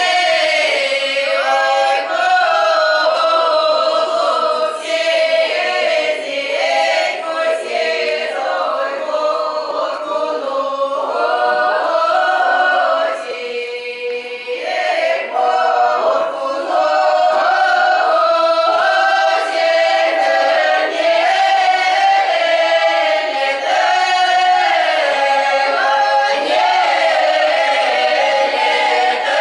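Mixed choir of men's and women's voices singing a Russian folk song a cappella in traditional village style. About halfway through the voices thin out briefly, then the full group comes back in.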